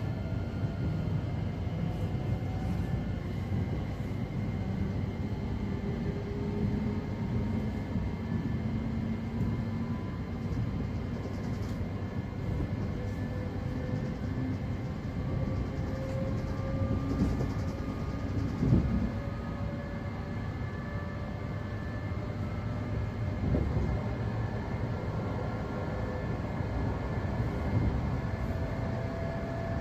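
Siemens Desiro City Class 717 electric multiple unit heard from inside the carriage while accelerating from about 20 to 50 mph. The traction motors whine in several tones that keep rising in pitch over a steady rumble of wheels on rail. Two short knocks come past the middle, the first the loudest.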